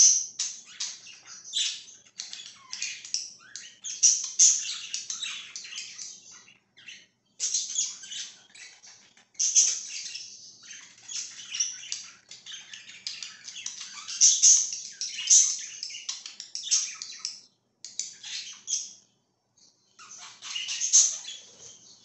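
Several budgerigars chirping and chattering in quick, overlapping runs of high calls, breaking off briefly a few times.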